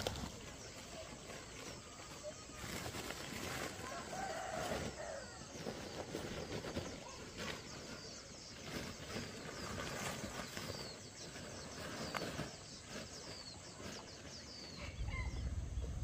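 Chickens clucking, with many short high chirps throughout, over the rustle and soft thuds of compost being scooped by hand from a sack and dropped into planting holes.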